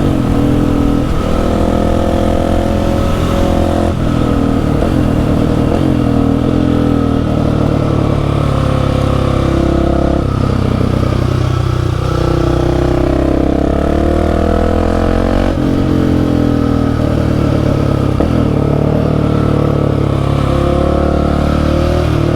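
Husqvarna 701's single-cylinder engine under way, its note climbing and dropping back again and again as the bike accelerates and shifts through the gears.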